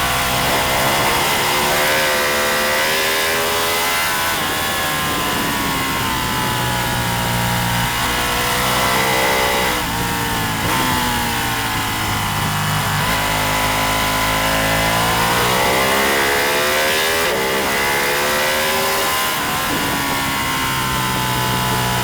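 Racing motorcycle engine under hard throttle, its pitch repeatedly climbing, dropping sharply and climbing again as it revs, shifts and backs off, over a steady rushing hiss.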